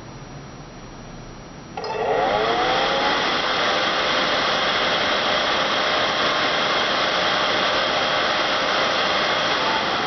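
An electric blower switches on about two seconds in, its whine rising as it spins up, then runs steadily with a loud airy rush. It is most likely the fan of the RE-7500 rework station.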